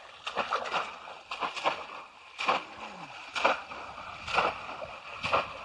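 Bamboo polo fish traps being plunged into and lifted out of shallow water over and over, a splash and a rush of water running off the trap about once a second.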